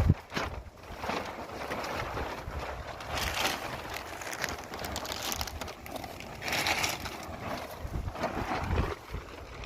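Wind buffeting the microphone outdoors in gusts, a noisy rush with low rumbling that rises and falls.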